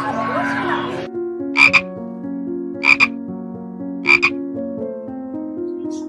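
A frog croaking three times, about a second and a quarter apart, each croak a quick double call. Background music of sustained notes plays under it.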